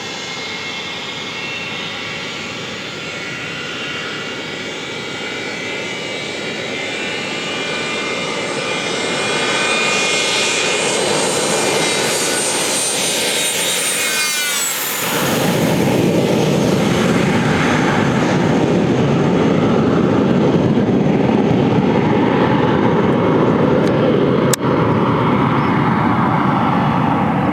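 Cessna Citation business jet's twin turbofan engines at takeoff power: a high whine grows louder as the jet comes closer. About halfway through the whine drops sharply in pitch as the jet passes, and a louder, deeper jet noise follows as it moves away. A single short click sounds near the end.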